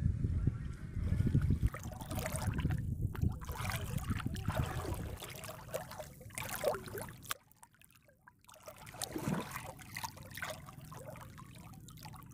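Pond water trickling and splashing lightly as a boy wades chest-deep, with a low wind rumble on the microphone through the first few seconds that drops away about five seconds in.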